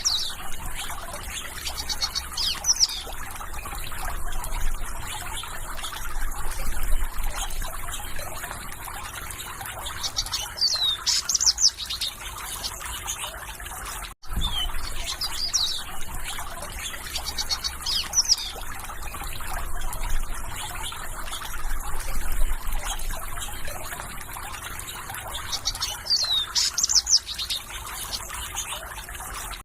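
A stream of water trickling steadily, with birds chirping over it in short, quick, falling chirps. The sound cuts out for an instant about halfway through.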